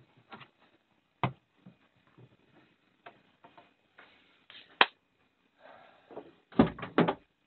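Scattered knocks and clicks from a camper van's interior trim panels being handled and fitted: one knock about a second in, a sharp click near the middle, and a quick run of knocks near the end.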